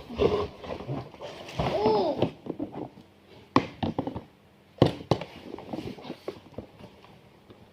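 Plastic spin mop parts being handled and knocked together: scattered clatter and clicks, a short rising-and-falling squeak about two seconds in, and two sharp knocks a little over a second apart in the middle.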